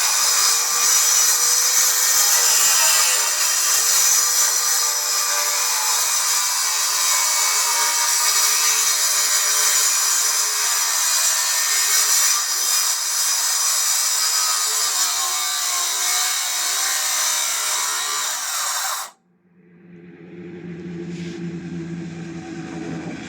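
OKATZ CS7V 7-1/4-inch circular saw cutting through wood, a loud, steady, high-pitched whine with a rough edge. It cuts off abruptly near the end and is followed by a lower hum.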